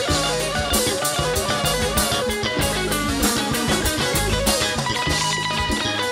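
Live band playing an instrumental break in a vallenato song, with an electric guitar taking the lead over drums and bass.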